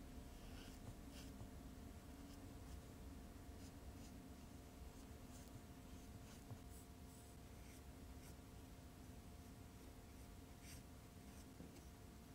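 Faint, irregular strokes of a small paintbrush on sketchbook paper, over a low steady background hum.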